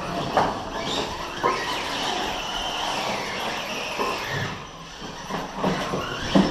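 Side-by-side UTV running hard, a wavering high mechanical whine over rough noise, with a few sharp knocks, the loudest near the end.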